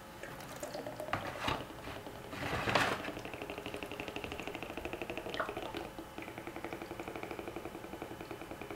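Glass mason jar of water with a 3D-printed watering lid handled, flipped upside down and set down in an empty plastic plant tray, the loudest sound about three seconds in. Then steady fast glugging, about eight pulses a second, as air bubbles up into the jar while water trickles slowly out through the lid's two holes.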